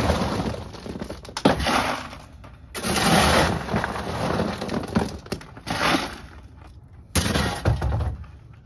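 Shovel digging into a pile of white river rock and tipping it into plastic buckets: stones grinding and clattering in four or five separate scoops, each a rush lasting a second or two.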